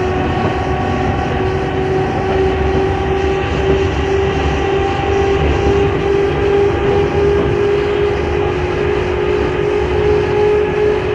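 British Rail Class 310 electric multiple unit running along the line, with a continuous rumble and a steady electric motor and gear whine that slowly rises in pitch as the train gathers speed.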